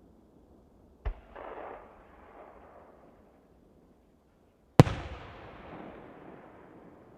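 Aerial firework shells bursting. A sharp bang about a second in is followed by a short crackling rumble, then a louder bang near five seconds echoes and dies away over about two seconds.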